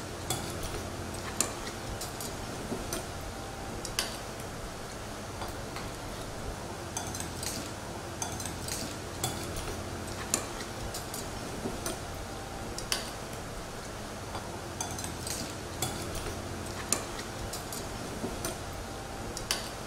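Spoon and fork clinking and scraping against a bowl while eating: irregular light clinks, one or two a second, over a steady low hum.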